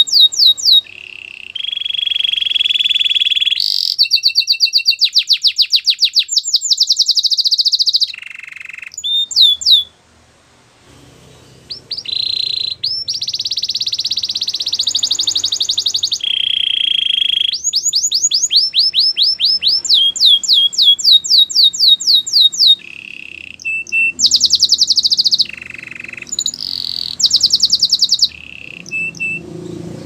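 Domestic canary singing a long song of fast trills, each phrase a rapidly repeated note that switches to a new note every second or two, with a brief pause about ten seconds in.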